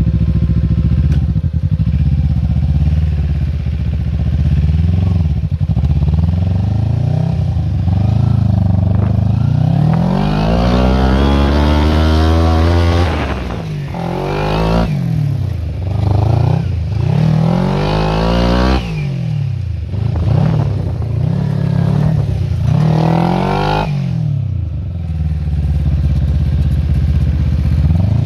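Small engine of a homemade Power Wheels go-kart running with a muffler, its pitch climbing in one long rise about ten seconds in, then revving up and down several times before settling back to a steady run.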